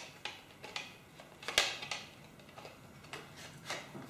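Light clicks and knocks from an external drive enclosure with a metallic-look top and plastic underside as it is handled. There are several sharp clicks, the loudest about a second and a half in.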